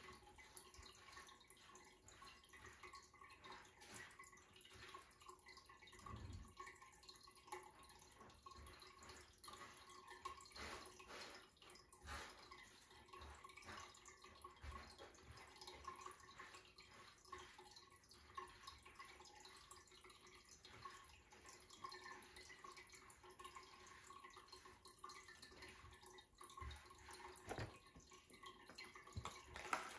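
Near silence: quiet room tone with a faint steady hum and faint, irregular small taps and clicks.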